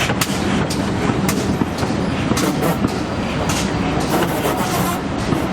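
Steam train: irregular clanks and knocks over a steady low rumble.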